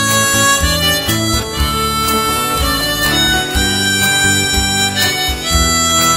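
Country band playing an instrumental break between verses: a lead melody of held notes over a bass line and a steady beat.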